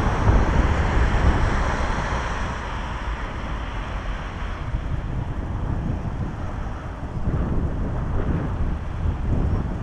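Wind buffeting the microphone as it is carried along on a moving Solowheel electric unicycle: a steady low rumble and hiss. It is louder at first, dips in the middle and picks up again after about seven seconds.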